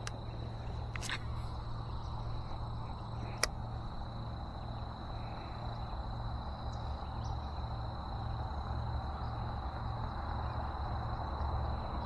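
Steady rumble of highway traffic, swelling a little near the end, with a thin steady high-pitched whine over it and a few sharp clicks, the clearest about three and a half seconds in.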